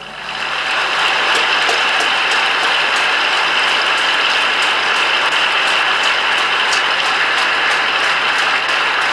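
A large audience applauding, the clapping swelling over the first second and then holding steady and loud.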